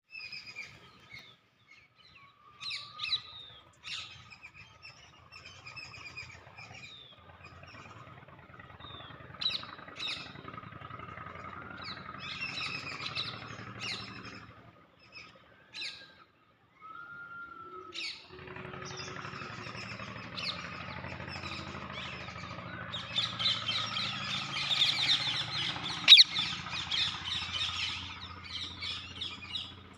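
A parrot chirping in short, high calls, scattered at first and then running together into dense chatter in the last several seconds, with one sharp click among it. A steady low hum sits underneath.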